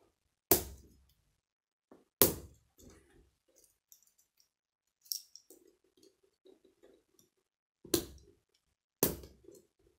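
K'nex plastic connectors and rods snapping together: four sharp clicks, two in the first few seconds and two near the end, with faint rattling and rustling of plastic pieces being handled between them.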